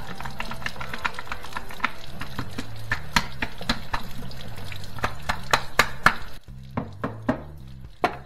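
Rapid, irregular clicking and tapping of a hard tool picking and scraping inside a dishwasher's plastic rinse-aid dispenser to break up calcified deposits, with a short pause near the end. Faint music plays underneath.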